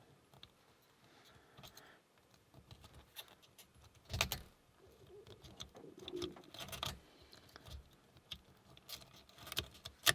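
Metal lock pick and tension tool scraping and clicking inside a Burg Wächter Karat padlock's keyway as the pins are worked, with scattered light ticks and a few louder rattles, the loudest about four seconds in and again near the end.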